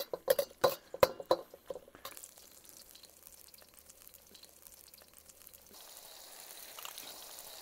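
A few quick knocks and clinks of a utensil against the wok, then a faint, steady sizzle from the heating wok that grows slightly louder near the end.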